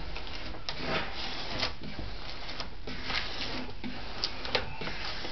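Application tape with a vinyl decal on it being peeled back up off the surface and handled: scattered light crinkles and ticks.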